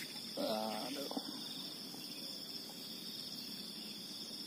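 A steady, high-pitched chorus of insects buzzing without pause, with a brief voice sound about half a second in.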